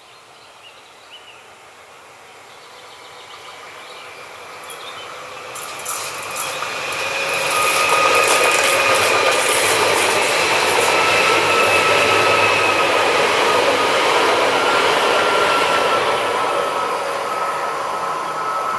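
Two coupled Pesa Elf 2 electric multiple units approaching on a curve and passing at speed. The wheel and rail noise grows louder over the first half, with a few sharp clicks as the train draws near. A steady high-pitched whine runs through the pass, and the sound eases off slightly near the end.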